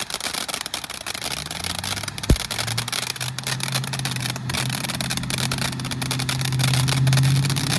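Firework fountain burning: a steady hiss with a dense crackle of small pops and one sharper pop about two seconds in. Underneath, a low engine hum starts about a second in and grows louder toward the end.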